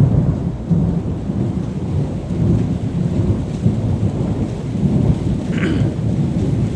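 Thunder rolling as a long, continuous low rumble that swells and fades in loudness. A brief higher sound comes about five and a half seconds in.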